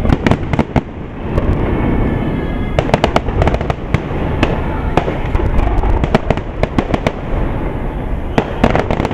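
Aerial fireworks shells bursting: repeated sharp bangs and crackling over a continuous low rumble. The reports come in clusters, near the start, around three seconds in, and again near the end.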